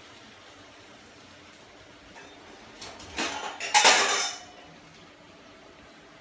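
Steel kitchen utensils clattering: a couple of sharp knocks about three seconds in, then a short burst of pots and spoons clanking together about a second later.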